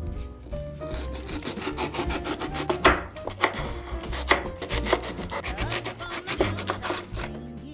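Kitchen knife cutting a fresh cucumber into chunks on a wooden cutting board: a rapid series of cuts, the blade sawing through the flesh and knocking on the board, over background music.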